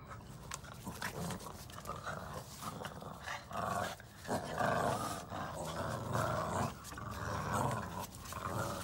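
Red Boston terrier puppies play-growling as they tug against each other on a ring toy, the growling getting louder and more continuous from about three and a half seconds in.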